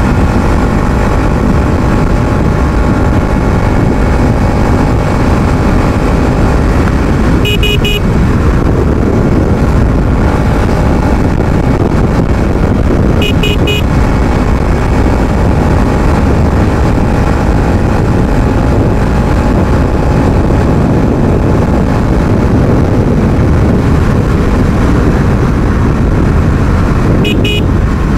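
Bajaj Pulsar NS200's single-cylinder engine running hard on the move, loud and steady. A horn gives short quick beeps about 8 s in, again about 13 s in, and near the end.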